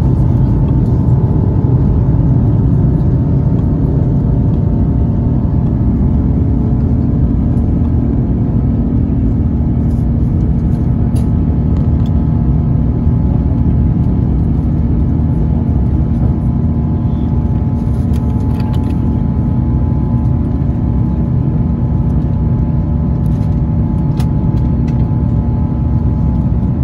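Jet airliner's wing-mounted turbofan engines at takeoff thrust, heard from inside the cabin as the aircraft lifts off and climbs. The noise is a loud, steady rumble with a couple of steady whining tones over it.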